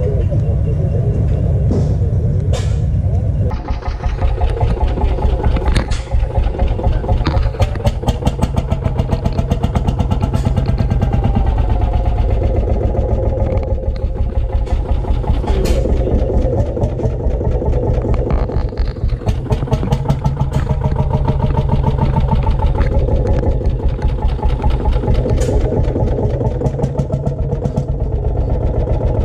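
Vintage tractor engines running: a steady low engine drone for the first few seconds, then an old tractor engine chugging with a rapid, even beat of exhaust pulses.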